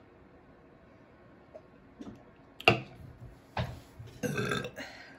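A woman burping after a swallow of moscato rosé wine.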